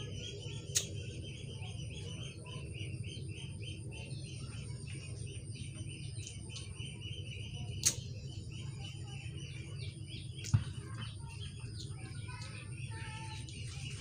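Small birds chirping rapidly and continuously over a steady low hum, with three sharp clicks spread through it.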